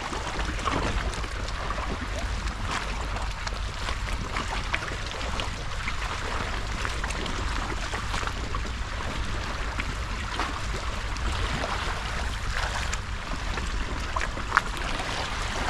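Estuary water lapping and trickling against the rocky shore at the water's edge, with wind rumbling on the microphone.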